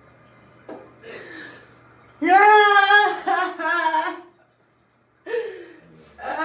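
A woman crying aloud: a sharp intake of breath about a second in, then a long wailing sob that falls in pitch, another gasp, and a second wail starting near the end.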